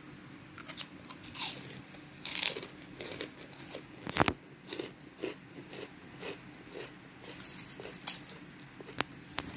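Fried fish cracker (kerupuk ikan) crunching: an irregular run of crisp cracks and crunches, the loudest about four seconds in.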